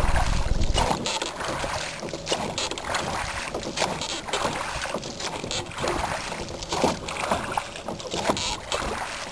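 Oars rowing a canoe through calm water from clamp-on rowing outriggers, with short splashes and knocks that come again with each stroke.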